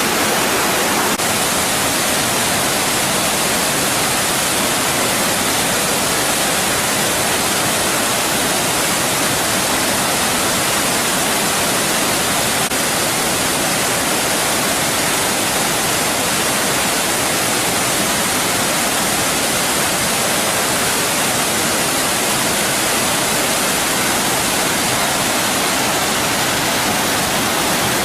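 Waterfall in flood, the swollen falls pouring down in a steady, loud rush of water with no let-up.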